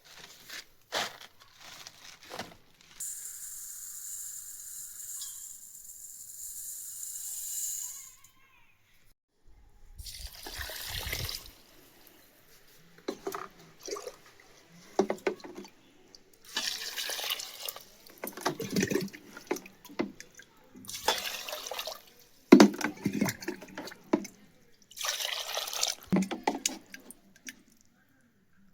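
Water poured and splashed by hand, as in washing in a vessel: a steady pour for a few seconds, then several separate bouts of splashing.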